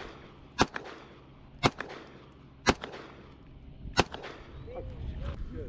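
Pistol firing four single shots about a second apart, each followed by a fainter echo.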